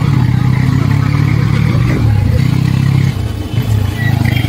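Honda SP motorcycle's single-cylinder engine running at low road speed, heard from the rider's seat, easing off briefly twice with the throttle.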